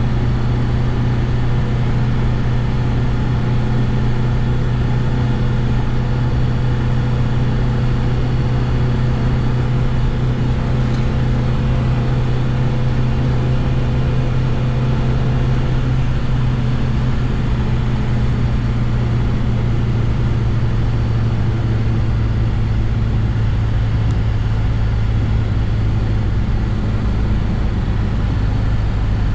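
Reliant Regal three-wheeler's four-cylinder engine running under way, a steady engine note with road noise, heard from inside the car.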